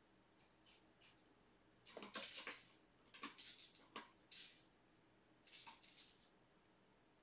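A kitten scratching and rustling: a few short groups of scratchy, hissy noise with some sharp clicks, against a quiet room.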